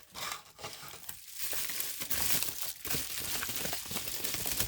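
Plastic packaging crinkling and rustling as it is handled and pulled open, in uneven crackling bursts that grow denser after the first second.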